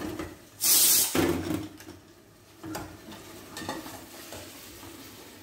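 Metal ladle stirring chicken curry in a hot steel pot on a gas stove: a short loud burst of sizzling just over half a second in, then several scraping strokes of the ladle against the pot over a faint continuing sizzle.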